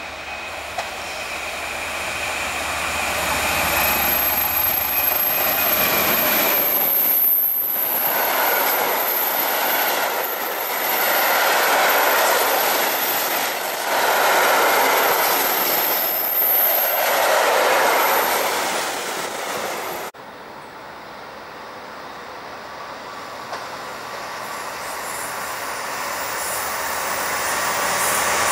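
GB Railfreight Class 66 diesel locomotive's two-stroke EMD engine drawing near, then a long rake of covered steel wagons rolling past, wheels rumbling with a high, thin wheel squeal and growing louder. The sound cuts off suddenly about two-thirds of the way through. It is replaced by another Class 66 freight approaching and growing steadily louder.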